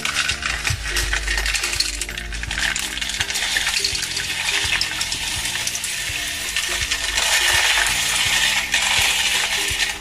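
Coarse dishwasher salt poured from a cardboard box into the dishwasher's salt reservoir: a continuous gritty rattle of granules, getting a little louder after about seven seconds.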